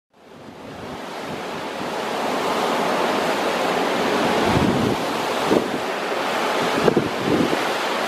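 Fast-flowing creek rushing over stones, a steady hiss that fades in over the first couple of seconds, with gusts of wind buffeting the microphone in low thumps a few times in the second half.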